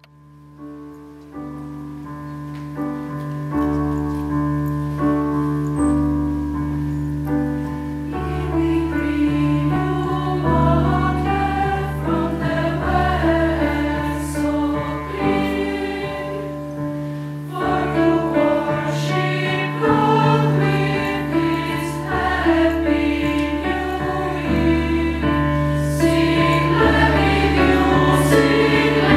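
Choir singing, fading in at the start and growing fuller and louder over the first several seconds as more voices join above long held low notes.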